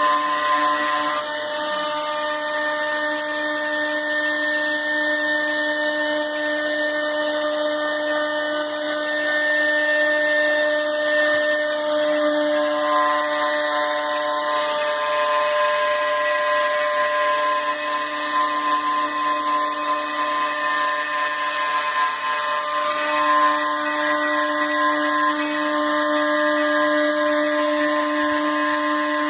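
CNC machine driven by NEMA 23 stepper motors running, a steady whine made of several tones whose pitches shift a few times as the motors change speed.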